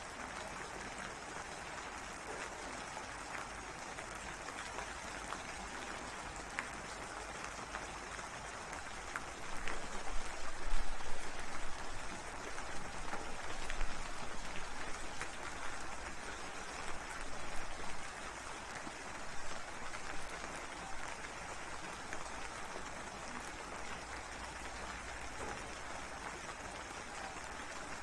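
Steady rain. About a third of the way in, a rumble of thunder swells up and dies away over roughly ten seconds.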